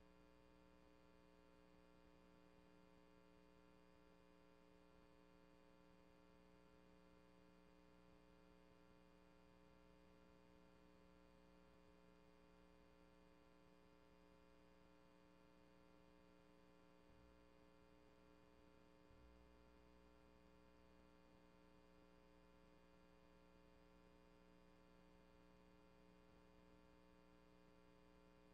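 Near silence: only a faint, steady electrical mains hum with many even tones. The meeting's audio feed is missing from the recording.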